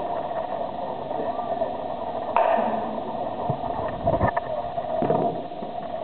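Baseball bats cracking against pitched balls in indoor batting cages: several sharp cracks, the loudest about two seconds in, over the steady hum of the hall.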